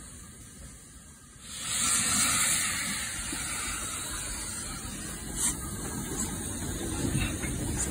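Model Midland 4F steam locomotive's onboard sound playing a steam hiss. It starts suddenly about a second and a half in, is loudest briefly, then goes on more quietly as the locomotive moves along, with a few faint clicks near the end.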